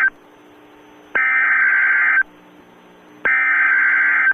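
NOAA Weather Radio SAME (EAS) header data bursts: the end of one burst, then two more, each about a second of rapid two-pitch digital data tones with a second's pause between. It is the coded header that opens an emergency alert broadcast and sets the receiver to the alert. A faint steady hum is heard in the pauses.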